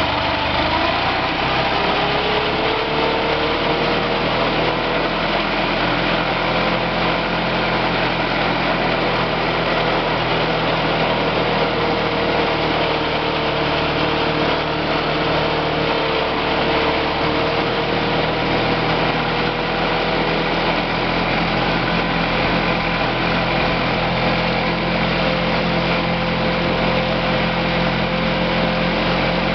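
Engine of a 1938 Viking Standard Twin garden tractor running steadily under load as the machine drives along in low range, its pitch rising slightly in the first few seconds, then holding even.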